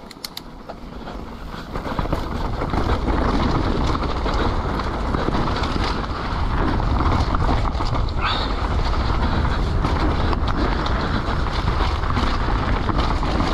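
Mountain bike descending a downhill trail at speed: a steady rush of wind on the microphone and tyres on dirt, with the bike rattling and many sharp knocks from rocks and tyre-and-rim strikes. It gets louder over the first two seconds as speed builds, and there is a brief high squeal about eight seconds in.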